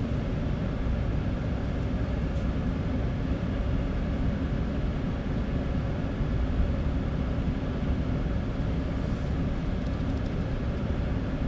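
Steady low rumble of a vehicle's engine and tyres, heard from inside the cab while it drives slowly.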